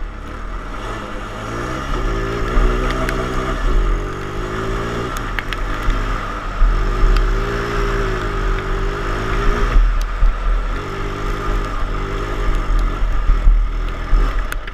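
Racing ride-on lawn mower's engine, heard from on board, its revs rising and falling several times as it accelerates and backs off, over a heavy low rumble.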